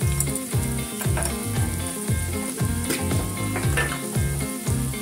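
Chopped onion and garlic sizzling in hot oil in a stainless steel pot, a steady frying hiss. Background music with a steady beat plays underneath.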